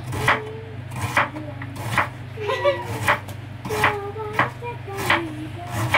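Kitchen knife chopping food on a cutting board: about eight sharp, unevenly spaced strikes over a steady low hum.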